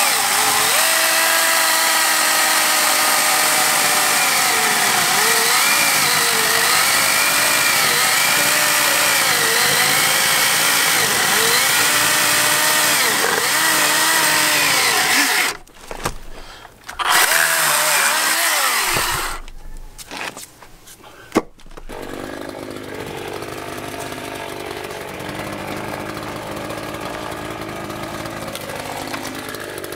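Battery-powered Ryobi electric chainsaw cutting wood, its motor whine dipping in pitch again and again as the chain bogs down in the cut. It stops briefly twice about halfway through, then runs on more quietly.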